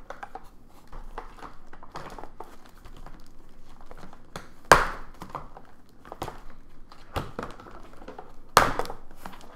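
Cardboard and plastic toy packaging rustling and scraping as a boxed doll is worked loose from its insert, with two sharp snaps, one a little under halfway through and one near the end.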